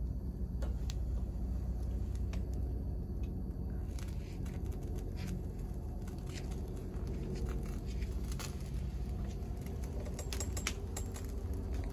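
Propane burner flame burning with a steady low rush while a whole chicken is held in it to singe, with scattered sharp crackles and clicks that come thicker near the end.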